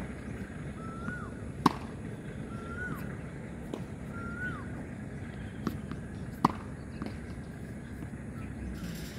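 Sharp pops of tennis balls during ball-machine practice: two loud ones about five seconds apart, with fainter knocks and bounces between. A bird repeats a short rising-then-falling whistle three times in the first half.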